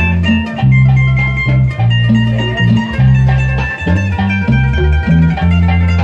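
Live bolero trio playing an instrumental passage: an electric bass walks through steady, changing notes under a plucked guitar melody, with no singing.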